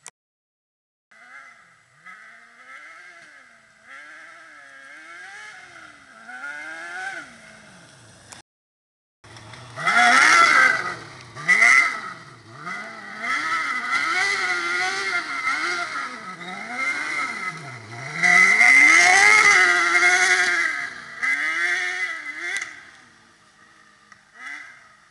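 A 600cc kart cross engine revving up and down again and again as the kart drives off-road, its pitch rising and falling with each burst of throttle. It grows much louder twice, about ten seconds in and again near twenty seconds, and the sound drops out briefly near the start and around eight seconds in.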